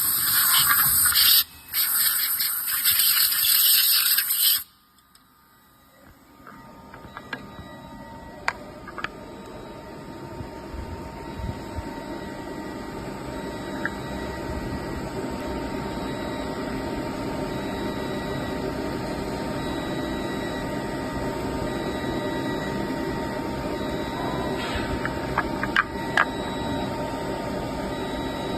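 A loud hiss that cuts off suddenly after about four and a half seconds, then the steady hum of a six-sided CNC drilling machine running, slowly growing louder, with scattered clicks.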